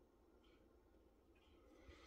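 Near silence: faint room tone with a low hum and a couple of very soft, brief ticks.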